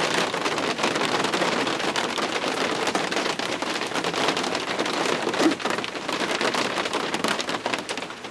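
Heavy rain falling steadily, with many sharp clicks of individual drops striking close by. It eases slightly near the end.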